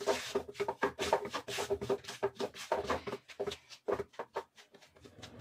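Silicone spatula scraping and stirring a thick gram-flour-and-ghee mixture in a nonstick pan, in quick irregular strokes a few a second. The besan is being roasted in ghee on low heat.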